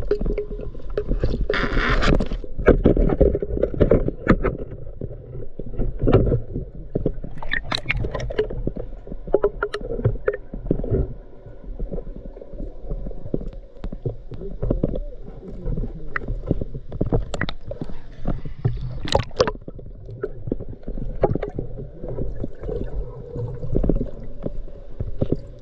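Muffled underwater noise: a continuous low rumble of water moving against the equipment, with scattered clicks and knocks from the speargun and gear, and a brief hiss about two seconds in.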